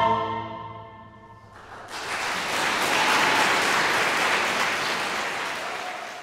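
An a cappella SATB choir's final chord dies away in the hall's reverberation, then audience applause starts about two seconds in and fades out near the end.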